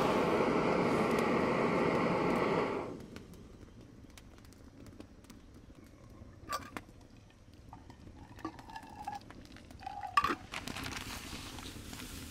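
A loud steady rushing roar that stops abruptly about three seconds in. After it, a small wood fire crackles faintly with scattered pops, and a few brief clinks ring out, the sharpest about ten seconds in.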